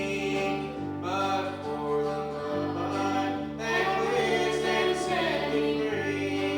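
Gospel music: voices singing over instruments, with held bass notes that change every second or so.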